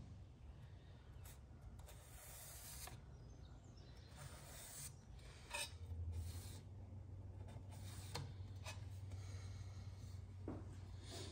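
Faint scraping and rubbing of metal parts being handled, with a few light clicks; a low steady hum comes in about halfway through.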